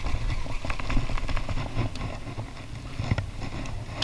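Low, gusty rumble of wind on a body-worn camera's microphone, with scattered light clicks and knocks from handling baitcasting rods and reels, one louder knock about three seconds in.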